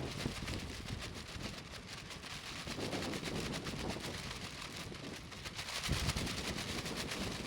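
Lightweight EVA and shiny plastic raincoats flapping rapidly in strong gusting wind, a fast crackling flutter, with wind buffeting the microphone. The wind rumble is strongest about six seconds in.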